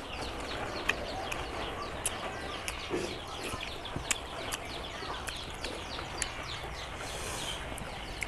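Mouth sounds of a man eating rice and boiled greens by hand: sharp smacks and clicks every second or so. Behind them, small birds chirp rapidly and constantly in short falling notes.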